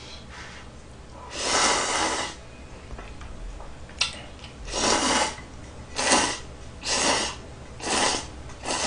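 A man slurping instant ramen noodles: one long slurp, then a run of shorter slurps about a second apart.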